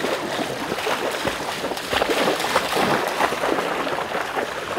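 Floodwater splashing and sloshing in irregular bursts as a retriever dog swims and wades through flooded timber, with rain falling on the water.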